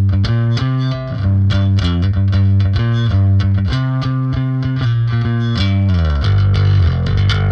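Background music: guitar-led rock with bass guitar and a steady drum beat, the guitar distorted; the arrangement thickens about six seconds in.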